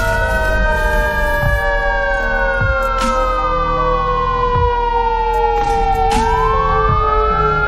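Emergency vehicle siren wailing in a slow rise and fall, with a second lower tone gliding slowly downward beneath it. A few sharp clicks or knocks come through.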